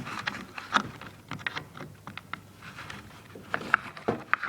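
Irregular light clicks, taps and small knocks from hands handling hard objects, with no steady sound between them.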